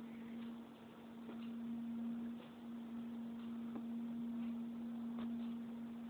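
A steady low hum with a few faint, scattered clicks.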